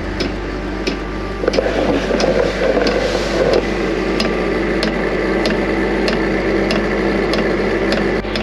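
Chinese diesel air heater trying to start: its blower fan runs with a steady hum and whine, and the fuel dosing pump ticks at an even pace, roughly one to two clicks a second. About a second and a half in, a louder rushing noise rises for around two seconds and a higher whine sets in. This is a start-up attempt that doesn't sound good, just before the heater puffs white smoke and fails to light.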